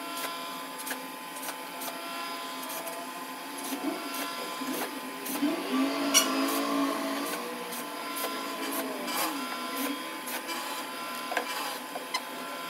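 Steady mechanical hum with scattered clicks. About five seconds in, a cordless drill spins up, runs for a few seconds and winds back down.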